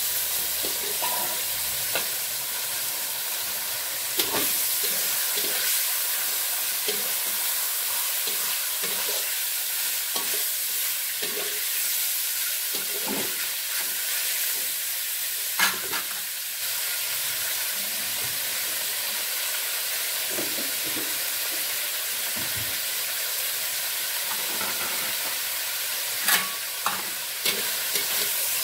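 Bean sprouts sizzling as they are stir-fried in a hot aluminium wok, with a metal spatula scraping through them and a few sharper knocks of the spatula against the pan.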